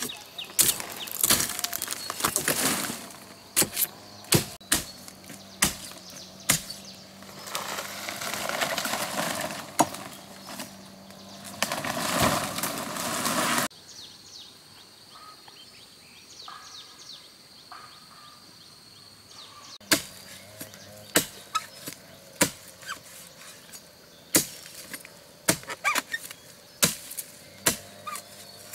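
A series of sharp knocks and impacts, irregularly spaced, mixed with rustling noise. The sound cuts off abruptly about halfway through, and the knocks resume some six seconds later.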